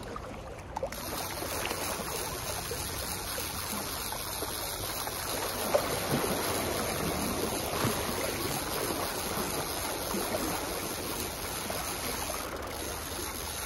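Seawater washing and sloshing steadily against a sea embankment, with a few brief knocks about six and eight seconds in.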